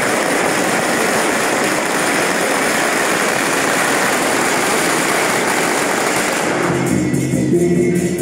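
A long string of firecrackers burning in a dense, continuous crackle that stops about six and a half seconds in, giving way to guitar music.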